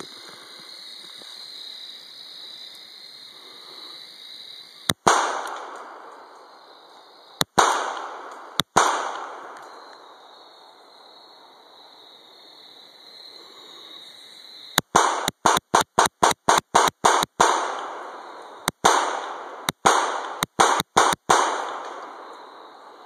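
Canik 55 S120 9mm pistol shots, each followed by a rolling echo: three single shots a few seconds apart, then a fast string of about ten, then five more in quicker succession. Crickets trill faintly underneath.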